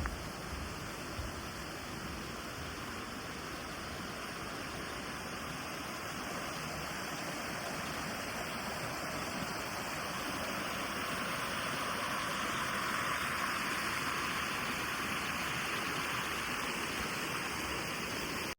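Mountain stream water rushing steadily over rocks, growing somewhat louder about halfway through.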